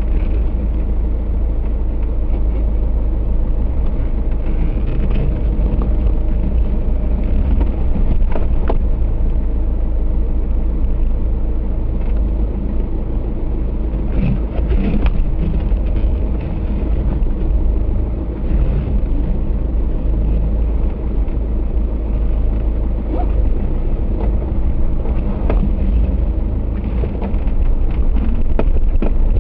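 Off-road 4x4's engine running steadily, with scattered knocks and clunks.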